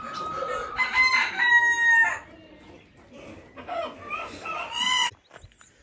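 Rooster crowing twice: a long pitched call in the first two seconds, then a second crow ending about five seconds in.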